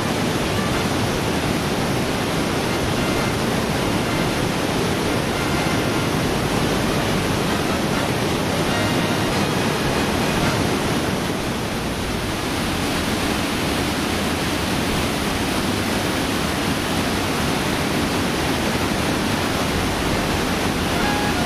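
Mountain stream rushing through a narrow rock gorge: a steady, unbroken wash of white water.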